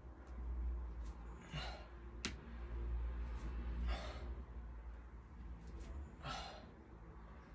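A man breathing hard from exertion, with three heavy exhalations about two seconds apart. There is a sharp click about two seconds in, over a steady low rumble.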